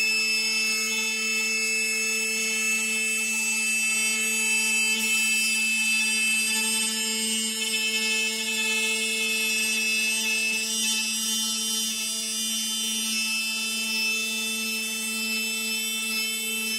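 CNC router spindle motor running at speed with a steady high whine, its bit cutting into a wooden serving board with a hiss of chips.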